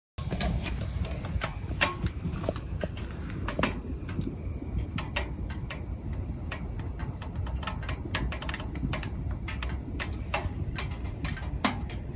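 Firewood crackling in a stainless steel camping wood stove: irregular sharp pops and ticks over a steady low rumble, the loudest pop about two seconds in.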